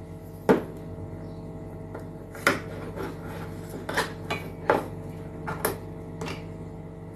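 Kitchenware knocks and clinks: about six sharp, irregular knocks of utensils or containers against a bowl, over a steady low hum.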